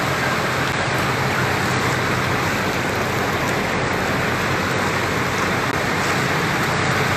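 A steady rush of water around a vehicle wading through deep floodwater, with a low engine hum underneath.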